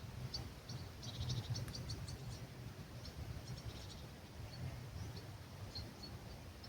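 Small songbirds chirping at dawn: quick high notes that crowd into a busy flurry about a second in, then thin to scattered calls, over a low steady rumble of breeze.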